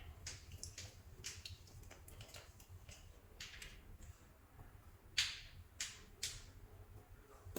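Soft play clay being squished and kneaded by hand, giving irregular short sticky crackles and clicks, the loudest about five seconds in, over a low steady hum.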